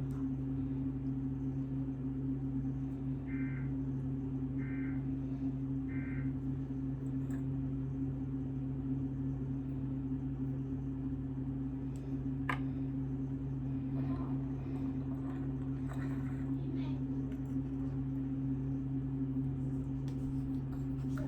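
A steady low hum, with three short faint high tones a few seconds in and a few light clicks.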